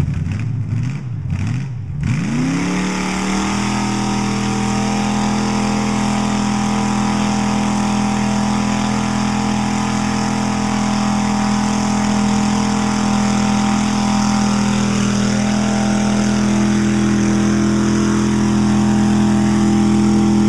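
Pickup truck engine revs up sharply about two seconds in and holds at high revs, full throttle, while the tyres spin in deep mud.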